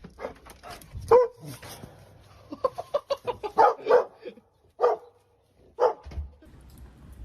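An animal making short, pitched calls: a single one about a second in, a quick run of them in the middle, and two more single calls after that.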